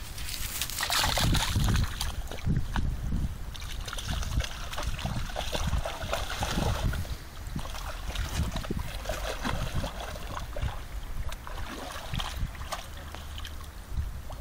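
English bull terrier wading through shallow muddy water, its legs sloshing and splashing with irregular strokes, loudest about a second in.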